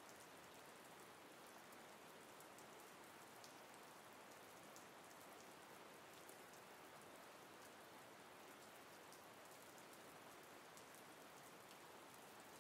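Faint, steady stock rain sound effect: an even hiss of falling rain with scattered light drop ticks.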